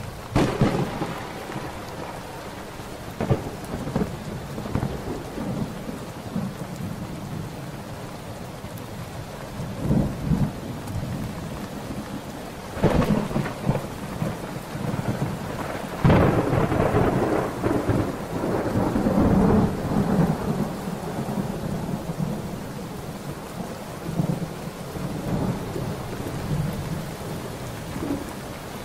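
Thunderstorm: steady rain with sharp thunderclaps about half a second in and again near 13 seconds, and the loudest crack at about 16 seconds rolling into a long rumble that fades over several seconds.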